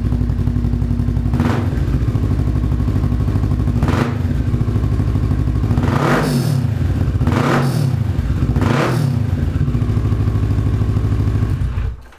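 Kawasaki 650 parallel-twin motorcycle engine idling with a freshly fitted aftermarket Bikemaster air filter, blipped five times with quick rises and falls in revs, then shut off near the end. The owner hears the intake drawing air in a little quicker with the new filter.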